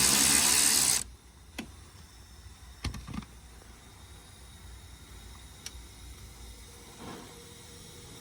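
A power tool runs and stops abruptly about a second in, spinning off the 10mm nuts that hold a car door's check strap. After it come a few sharp clicks, one near the middle louder than the rest.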